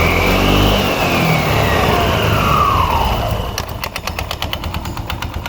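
Kymco Agility Fusion 125 scooter's single-cylinder four-stroke engine revved and falling back over about three seconds, then running slower with a rapid rhythmic clacking, about six a second. The noise sounds horrible and comes from the CVT drive, the belt, clutch and variator-roller side.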